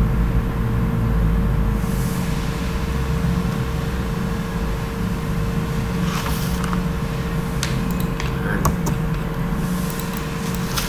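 Steady low hum and rumble with a constant tone, joined by a few sharp clicks a few seconds before the end.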